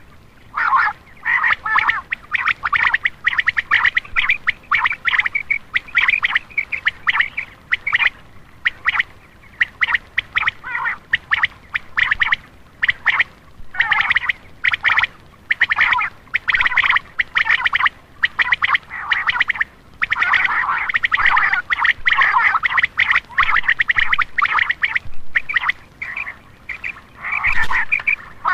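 Common quail calls played as a lure to draw in male quail: long bursts of rapid, repeated calling with short pauses between them.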